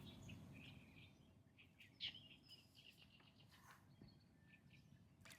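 Near silence with faint, scattered bird chirps and calls, one slightly louder about two seconds in.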